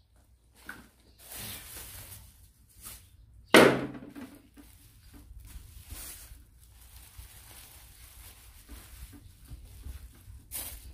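Plastic bag rustling as it is handled and packed with meat, with one loud knock and a short ring about three and a half seconds in.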